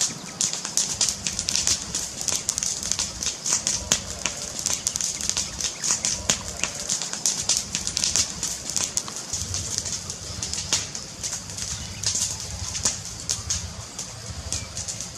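Wood fire crackling steadily: a dense, irregular stream of sharp pops and snaps over a soft hiss and low rumble.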